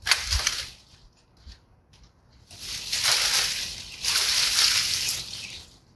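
Dry rose canes and dead leaves rustling and crackling as cut branches are worked and pulled out of the bush: a sudden crackle at the start, then two long stretches of rustling about halfway through.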